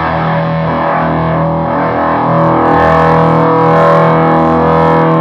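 Plucked electric strings played through a Behringer Bass Brassmaster fuzz pedal: sustained, fuzz-distorted notes ringing out. They swell louder about two and a half seconds in.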